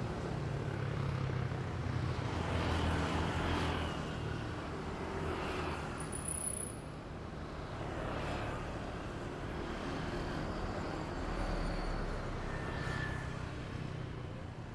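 Road traffic: a string of cars and motorbikes passing one after another, with a low engine hum through the first few seconds and several more vehicles swelling and fading past after that.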